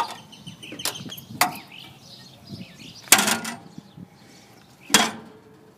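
A handful of sharp metal knocks and clanks, about five in all, the loudest a short ringing clank about three seconds in and another near the end, like the hardware and compartment doors of a steel truck service body being handled.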